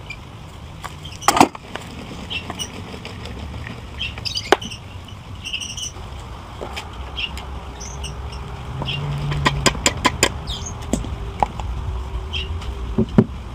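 Scattered clinks and knocks of metal engine parts and hand tools during the teardown of a GX390-clone small engine, with a quick run of several sharp clicks about ten seconds in, over a steady low rumble.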